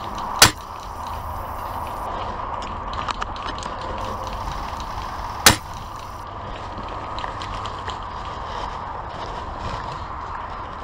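Two sharp shots from a spring-powered airsoft sniper rifle, about five seconds apart, with a few faint clicks between them, over a steady background hiss.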